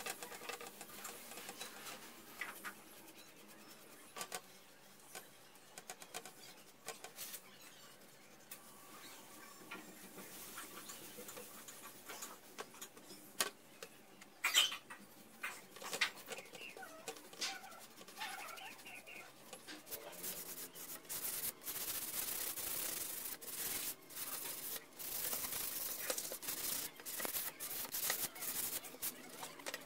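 Hand sanding with 400-grit sandpaper on a freshly stained wooden picture frame: fast back-and-forth rubbing that starts about two-thirds of the way in and keeps going. Before it, only scattered light clicks and knocks of handling.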